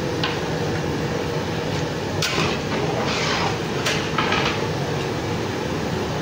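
A metal ladle stirring a large aluminium pot of cooked chickpeas in gravy: several short scraping, sloshing strokes over a steady low rumble.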